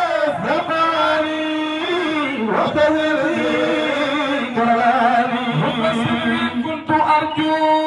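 Men chanting Sufi zikr, singing Arabic devotional verses into microphones. The voices stretch each syllable into long held notes that slide slowly from pitch to pitch, with two or more voices overlapping.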